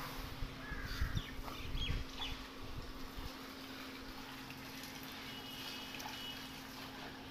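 Birds chirping here and there over a steady low hum, with low rumbling on the microphone in the first three seconds.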